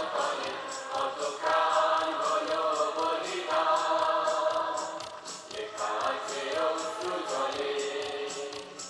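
Choir singing long held notes in several phrases over a steady beat, as the soundtrack of a light and sound show.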